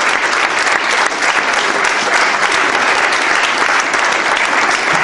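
Audience applauding: dense, steady clapping of many hands, without a break.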